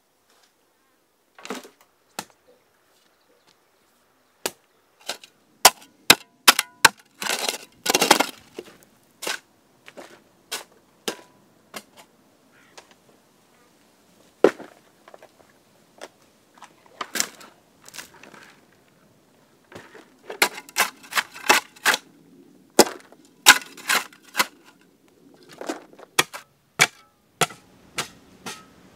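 Hand digging in hard, stony soil: a series of sharp, irregular strikes and scrapes of a spade and pickaxe biting into the ground, with a longer scraping rush about seven seconds in.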